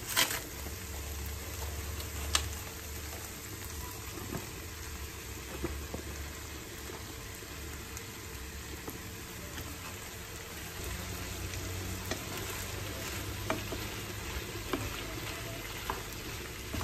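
Chicken pieces and sliced mushrooms sizzling in a non-stick frying pan while being stirred with a wooden spatula. A few sharp knocks stand out, the loudest at the very start and about two seconds in, with lighter taps and scrapes later.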